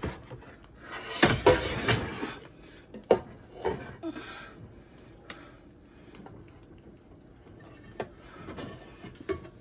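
A pot of boiled pasta and its cooking water being dumped out, a splashing rush of water lasting about a second, then a few knocks of the pot and utensils.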